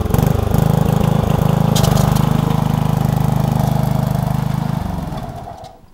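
Riding lawnmower's small engine running loud and steady, then cutting out about five seconds in and dying away: the engine stalls.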